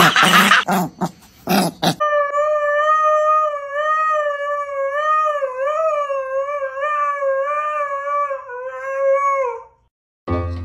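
Husky howling: one long, wavering note of about eight seconds that starts about two seconds in and fades out near the end. It comes after a brief loud, noisy stretch.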